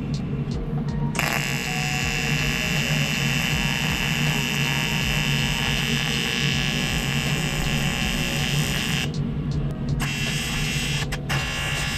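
AC TIG (argon) welding arc on aluminium, a steady high buzz. It strikes about a second in, cuts out about nine seconds in, then restarts with a short break near the end.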